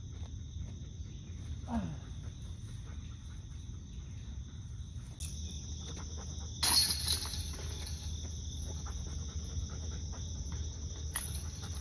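Steady chorus of insects, two high tones that do not let up, with a disc golf putt hitting the metal chains of the basket about seven seconds in: a sudden, loud metallic jangle that rings for about a second. A smaller chain rattle comes near the end as the disc is taken out of the basket.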